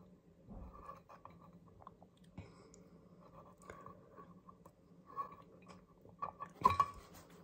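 Sipping an iced drink through a straw from a glass mason jar: faint mouth sounds and small clicks, with a louder sip near the end.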